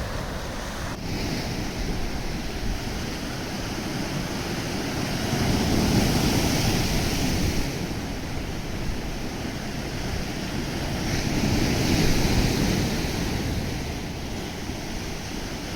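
Mediterranean Sea waves washing onto the shore, the surf swelling twice, about six and twelve seconds in, with a low rumble of wind on the microphone underneath.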